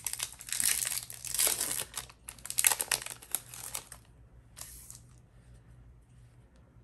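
The wrapper of a 2015 Topps Chrome trading-card pack crinkling and tearing as it is ripped open, in several stretches of rustling over the first four seconds, with one more short crinkle near five seconds as the cards are slid out.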